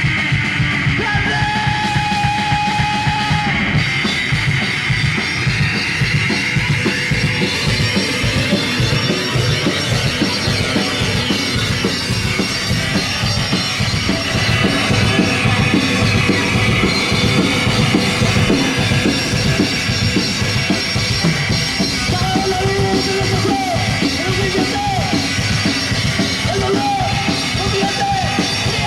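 Live rock band playing a song, with a steady drum-kit beat and a pitched lead line that comes in near the start and again in the last third.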